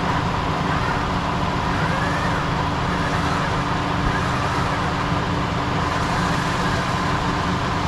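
A vehicle engine running steadily, with a constant high whine over it.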